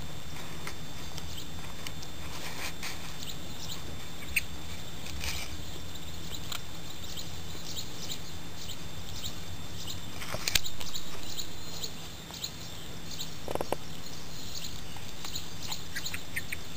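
Japanese Spitz chewing a huhu beetle: scattered small crunches and clicks over a steady low hum, with one louder click about ten seconds in.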